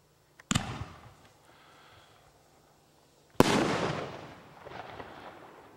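An aerial firework shell is fired from its mortar with a bang, then bursts about three seconds later with a louder, sharper bang that echoes and fades. A few smaller pops follow as it dies away.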